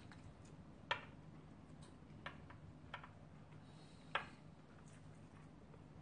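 A few short, soft clicks, the clearest about a second in and just after four seconds, over a faint low steady hum.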